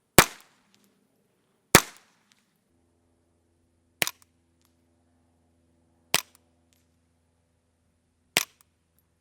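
Five suppressed gunshots through a Rugged Suppressors Obsidian 45, spaced about two seconds apart. The first two are louder, with longer tails. A faint steady hum comes in under the last three.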